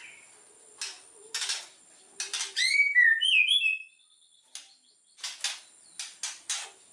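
White-rumped shama (murai batu) singing. Short harsh chattering notes lead into a loud run of quick, slurred whistles about two and a half seconds in, then more harsh notes after a pause.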